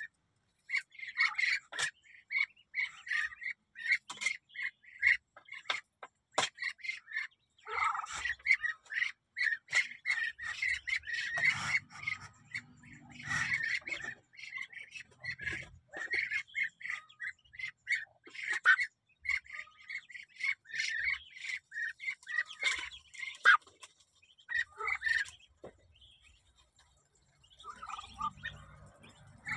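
Newly hatched Muscovy ducklings peeping: a busy run of short, high calls, several a second, with brief lulls.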